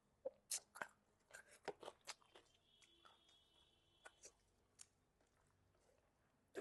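Quiet close-up eating sounds: chewing with scattered short, crisp mouth clicks and smacks, clustered in the first two seconds and again about four to five seconds in.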